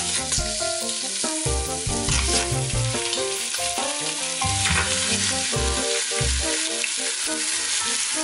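Chicken thighs sizzling in hot vegetable oil in an Instant Pot's stainless steel inner pot on sauté mode, as the pieces are laid in to brown.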